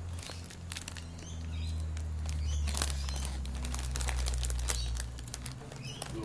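Light, irregular clicks and scratches of a red claw crayfish's legs and claws on a tiled floor as it shifts and rears up, over a low steady hum.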